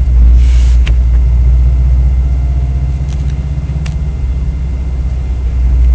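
Subaru WRX STI's turbocharged flat-four engine idling with a deep, steady rumble, the sound its owners call raw and brutish. It gets slightly louder near the end.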